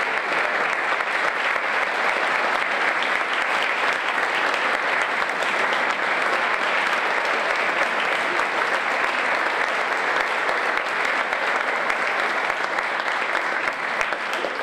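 Audience applauding steadily at the close of a concert band's piece.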